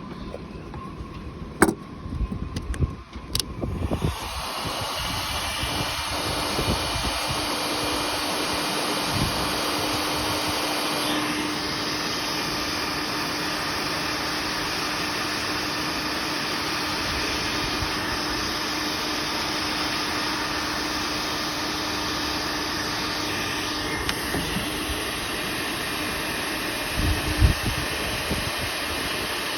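A few clicks and knocks, then about four seconds in a heat gun on high heat starts and runs steadily, a fan rush with a steady hum, heating a seized outboard transom clamp's threaded boss to free it.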